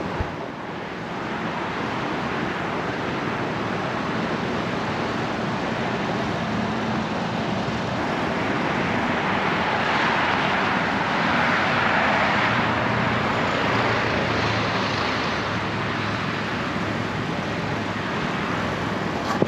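Steady road traffic noise, a wash of tyre hiss from passing cars on a wet road, swelling about halfway through as a vehicle goes by.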